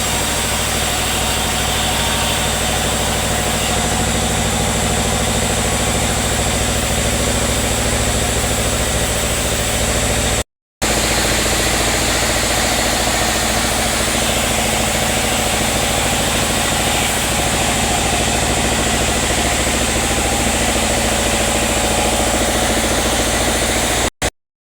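Sawmill machinery running steadily, a constant engine hum with hiss above it. The sound drops out completely for a moment about ten seconds in and again near the end.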